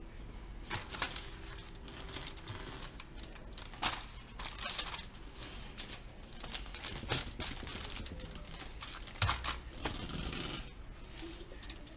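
Aluminium foil crinkling and rustling in irregular crackles as a fish is handled and wrapped in it.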